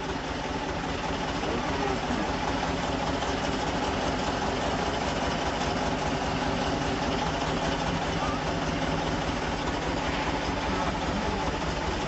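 Road roller's diesel engine running steadily with a rapid low pulsing, while its steel drum rolls over ceramic mugs and cracks them.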